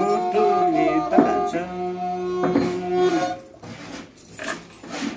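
Nepali sarangi, a small bowed folk fiddle, playing held, gliding notes with a man singing a folk song; the music stops about three seconds in.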